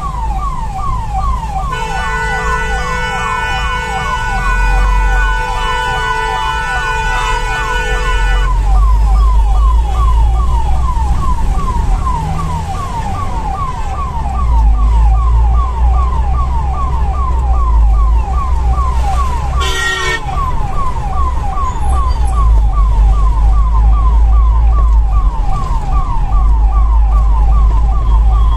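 Ambulance electronic siren on a fast yelp, sweeping up and down about three times a second, heard from inside the cab over a low rumble. A horn sounds steadily from about two to eight seconds in, and a short horn blast comes about twenty seconds in.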